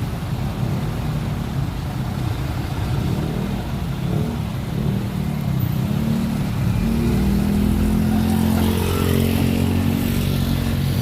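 Road traffic with a heavy engine running close by; its low drone climbs in pitch partway through, then holds steady and slightly louder as the vehicle pulls away or revs.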